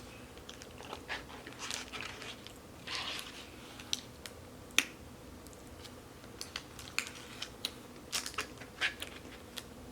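Close-up eating sounds: chewing with soft mouth clicks and short crunchy bursts, and a sharp click about five seconds in.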